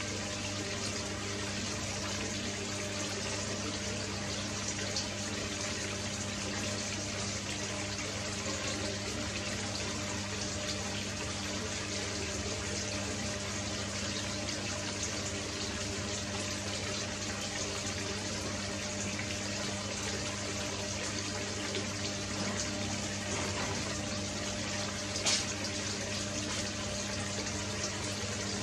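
Steady rush of water in an aquarium, with the low, even hum of a filter or pump motor running. A single short tick sounds near the end.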